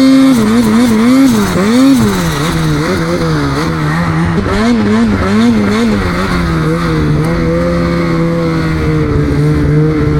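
Snowmobile engine running with quick, repeated rises and falls in pitch as the throttle is worked, then holding a steady pitch from about six seconds in.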